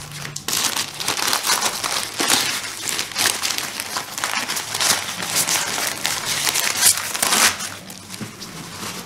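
Packing paper crinkling and rustling as it is unwrapped from around a potted orchid by gloved hands: dense crackling that thins out near the end.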